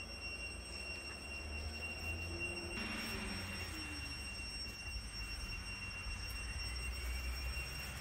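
Cicadas singing: a steady, high-pitched whine, with a broader hissing buzz joining about three seconds in.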